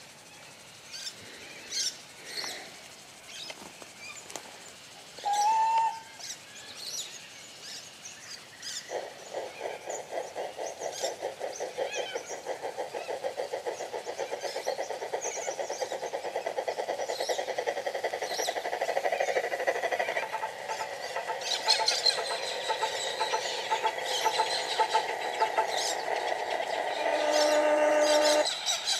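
Model steam locomotive soundcard playing steam exhaust chuffs through the loco's onboard speaker, steady and growing louder as the large-scale pannier tank engine approaches, with a short whistle toot about five seconds in. Birds chirp throughout, and a short run of falling tones sounds near the end.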